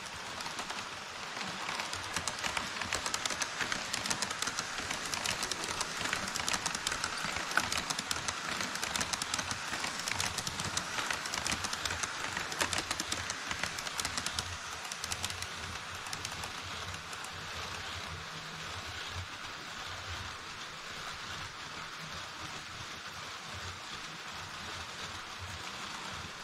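HO-scale model trains rolling across a model truss bridge on KATO Unitrack: a steady rattling clatter of small metal wheels on the rails, dense with fine clicks. It is louder for the first half, then drops to a quieter rattle.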